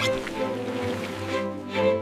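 Background music with sustained bowed-string notes.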